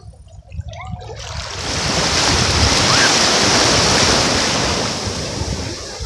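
A small wave breaking and washing up the sand right at the microphone: a rushing hiss of surf that swells in about a second in, holds loudest for a couple of seconds, then ebbs away near the end. Wind buffets the microphone underneath.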